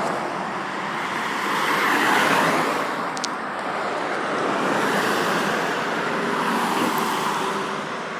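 Traffic on a main road: several vehicles pass close by one after another, the tyre and engine noise swelling and fading.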